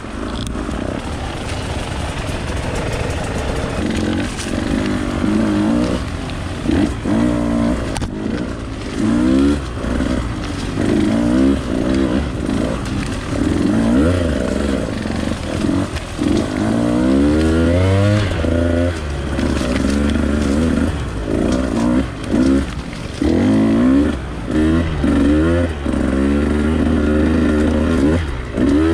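Two-stroke Husqvarna enduro dirt bike engine revving up and down over and over as the throttle is worked, the pitch climbing and dropping every second or two.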